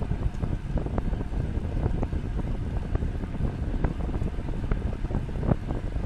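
Wind buffeting the microphone of a camera carried on a moving bicycle, a steady low rumble with scattered small knocks and clicks.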